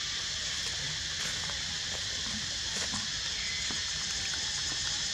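Steady high-pitched hiss of outdoor background noise, even in level throughout, with a few faint clicks.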